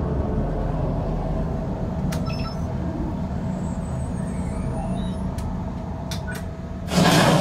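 Steady low rumble of the Millennium Falcon: Smuggler's Run ride cockpit, with scattered clicks, then a loud burst of noise about seven seconds in.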